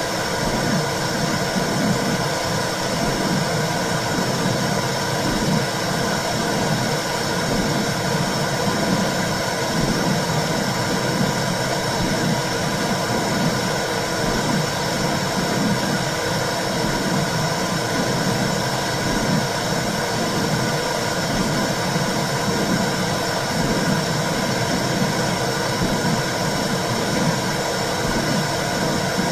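Womb sound for calming a baby: a steady whooshing noise with a low, pulsing rumble underneath, unchanging throughout.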